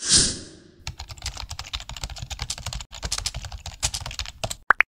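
Animated outro sound effects: a short whoosh at the start, then a dense run of rapid, irregular clicks lasting about three and a half seconds, ending with two quick rising blips.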